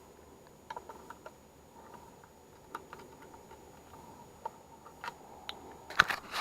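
Scattered light ticks and taps, with a quick run of sharper clicks near the end: meter test probes being handled and touched to the terminal screws of a light switch used as a furnace disconnect, checking for power.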